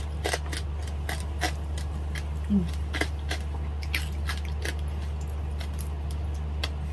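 Close-miked chewing and mouth clicks of a person eating roast pork by hand, with scattered sharp crackles, over a steady low electrical hum.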